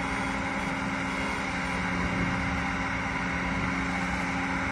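Steady drone of the engines of a giant rubber-tyred girder gantry carrier as it travels slowly carrying a 40 m concrete box girder, an even low hum with no change in pitch.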